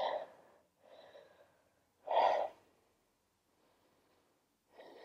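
A woman breathing out audibly: a faint breath about a second in, then a short, louder exhale about two seconds in, and another faint breath near the end.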